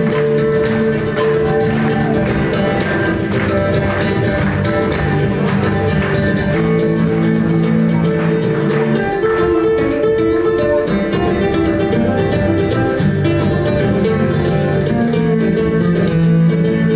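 Flamenco-style nylon-string acoustic guitar played live, with quick rhythmic strums over sustained notes that give way to smoother held chords about halfway through.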